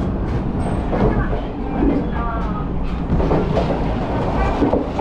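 Running noise inside a moving Resort Shirakami train carriage: a steady low rumble with scattered knocks and rattles.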